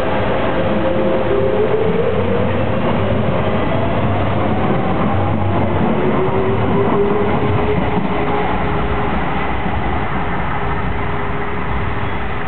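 Docklands Light Railway electric train pulling out of the station. Its traction motors whine, rising in pitch as it accelerates over the first several seconds, then holding a steadier tone as it runs off, all over a constant running noise.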